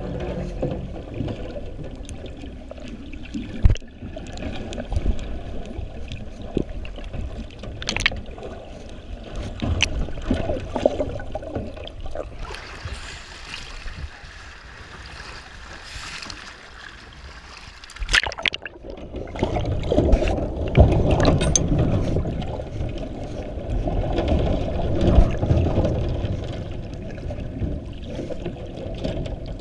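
Muffled underwater rumble and water noise picked up by a camera at a shark cage, with a few sharp knocks. From a little before the middle the camera is above the surface and picks up hissing wind and choppy waves. Then, with a sudden splash, it goes back under and the low rumble returns.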